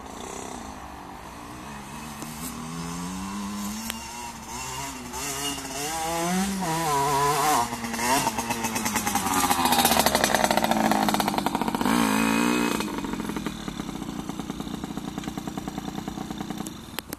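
Motocross bike engine revving up and falling back repeatedly through the gears, growing louder to its loudest about ten seconds in, then settling into a lower, steadier note.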